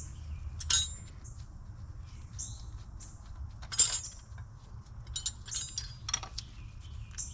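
Metal hand tools and engine parts clinking and clanging during engine teardown: a sharp ringing clank about a second in, a louder one near four seconds, then a quick run of lighter clicks.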